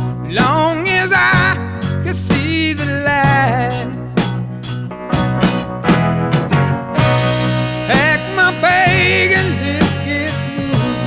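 A song with a sung vocal over a band: steady bass and a regular drum beat, with two sung phrases, one near the start and one past the middle.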